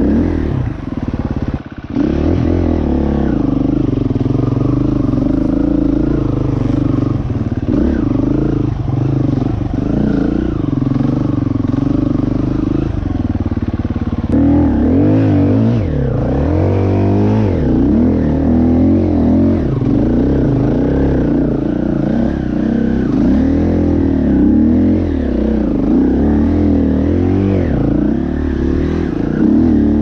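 Dirt bike engine running under the rider's throttle, its revs rising and falling again and again as it rides a rough, muddy trail, with a short drop in revs about two seconds in.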